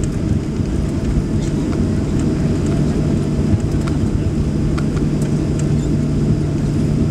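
Cabin noise of a Boeing 737 Next Generation taxiing: its CFM56-7B jet engines at taxi idle and the rolling airframe give a steady low rumble. A low hum steadies about two and a half seconds in, and a few faint clicks sound over it.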